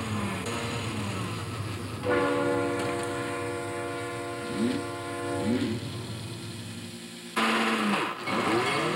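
A train horn blowing long blasts of several pitches sounding together, the pitch sagging as each blast ends, over a steady low hum: one long blast of about four seconds, then a short one, then another starting near the end.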